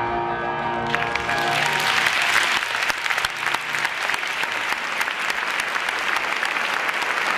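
A live grand piano's final notes ringing out, overlapped about a second in by audience applause that breaks out and carries on as dense, even clapping.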